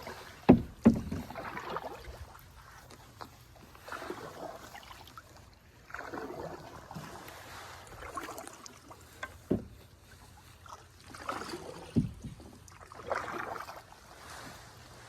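Paddle strokes through the water from a canoe, a soft swish every couple of seconds, with a few sharp knocks, the loudest two just after the start.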